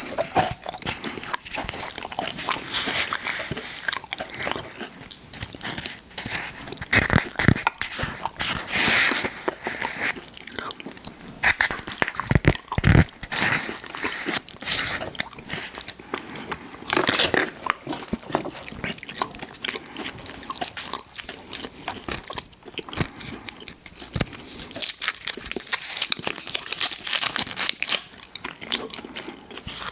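Close-miked eating of sweets: biting and chewing with wet, crackly mouth noises and irregular crunches, and a few heavier thumps about seven and twelve seconds in.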